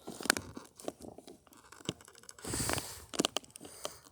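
Handling noise from a fireworks cake being set up: irregular crinkling, rustling and light knocks of its cardboard and wrapper, with a longer rustle about two and a half seconds in.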